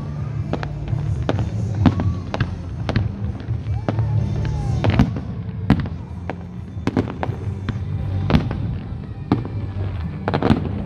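Fireworks display: aerial shells bursting in an irregular series of sharp bangs and crackles, a few of them clustered together, over music with a steady low bass line.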